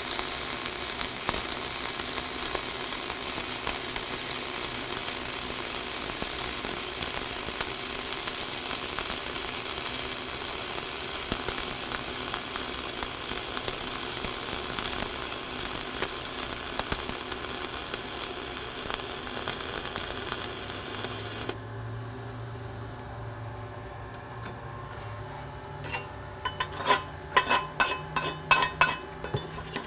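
Flux-core arc welding on a vertical-up cap pass: the steady crackle of the arc, cutting off about three-quarters of the way through. A low hum follows, then near the end a quick series of sharp metallic clinks on the steel plate.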